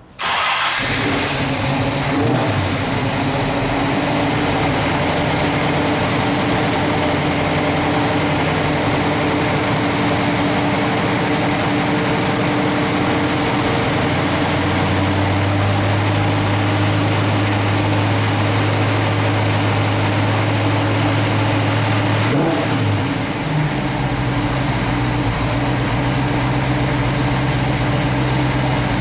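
Pontiac V8 (a 428 stroked to 462 cubic inches with a 455 HO top end) idling steadily, with one short rev about three quarters of the way through.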